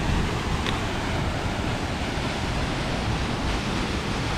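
Mountain waterfall rushing steadily, with wind buffeting the microphone.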